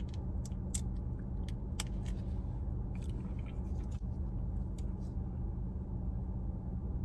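A hot sauce packet crinkling and crackling as it is bitten and torn open by the teeth, a scatter of sharp little clicks that thin out after about five seconds. A steady low hum runs underneath.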